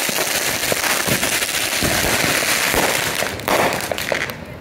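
Consumer fireworks going off: a dense, continuous crackling and hissing of many rapid pops, with a louder surge about three and a half seconds in.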